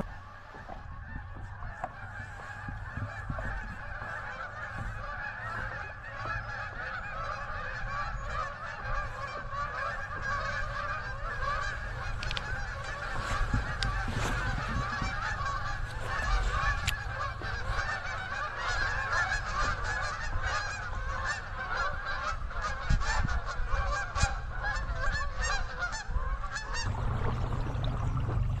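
A large flock of geese honking, many calls overlapping without a break, over a steady low rumble. The honking stops abruptly near the end.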